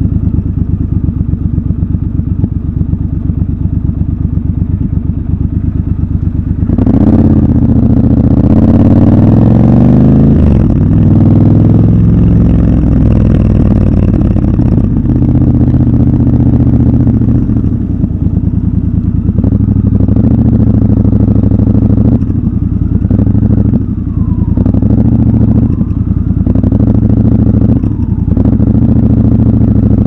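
Triumph Scrambler 1200 XC's 1200 cc parallel-twin engine running at low revs in city traffic. About seven seconds in it gets louder and its pitch rises as the bike speeds up. Later there are a few brief drops in level as the throttle eases off.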